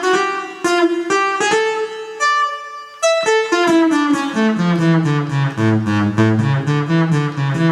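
Travel Sax 2 electronic saxophone playing its Synth Bass voice: a run of short, plucked-sounding synth bass notes. A held note fades out about two seconds in, then a quicker line drops into a lower register from about four seconds.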